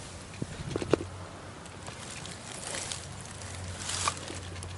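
Dry fallen leaves rustling and crackling in a few short crunches as a person shifts on the forest floor, over a faint steady low hum.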